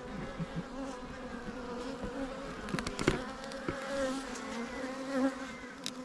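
Many honeybees buzzing around an open hive: a steady drone whose pitch wavers as bees fly past close by. A few brief knocks come partway through and again near the end.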